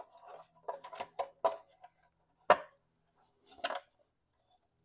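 Plastic engine cover of a Honda 3.5L V6 being pressed down into place, giving a series of short knocks and clunks, the loudest about halfway through.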